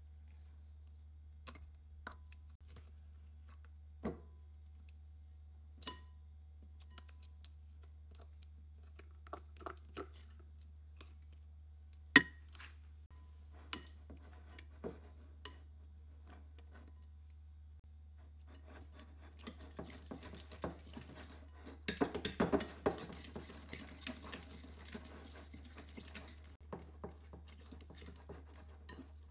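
Scattered taps and scrapes of a silicone spatula on a glass bowl, with one sharp knock near the middle, as mascarpone is scooped in. About two-thirds of the way through, a hand whisk starts beating cream and mascarpone in the glass bowl: a fast, steady clatter and scrape of the wires against the glass, loudest a few seconds after it starts.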